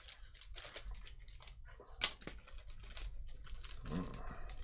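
Clear plastic packaging bag and its card header crinkling and rustling as the package is opened, an irregular run of small crackles with one sharp click about two seconds in.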